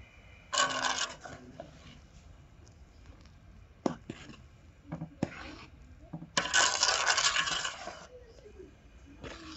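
Kitchen utensils scraping against a pot or jar, in two loud scrapes with several short clinks between them.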